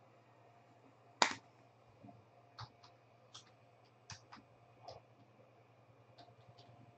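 A single sharp plastic clack about a second in, as a card in a hard plastic case is set down on the stack. It is followed by irregular soft clicks of typing on a computer keyboard.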